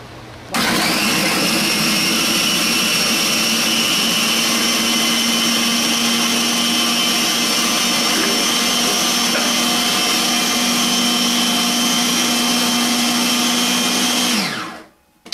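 Electric food processor running, blending cheese and green bell pepper: the motor starts about half a second in, runs loudly at a steady pitch, and slows to a stop near the end.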